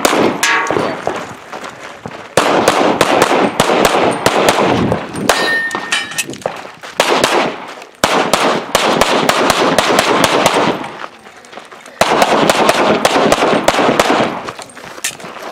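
Pistol fired in fast strings of shots at close spacing, several strings separated by short pauses, with steel targets clanging when hit.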